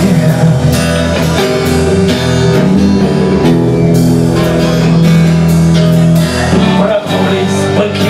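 Live rock band playing: acoustic guitar strummed over drums, with a bowed violin holding long notes.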